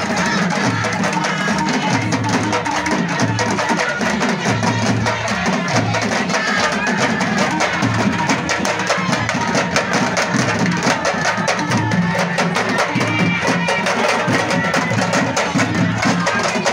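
Percussion-led music: fast, dense drumming over a repeating deep bass pattern, running without a break.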